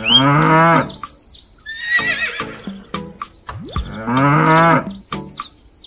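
A cow mooing twice, each moo under a second long and about four seconds apart, with bird chirps and sharp clicks in between.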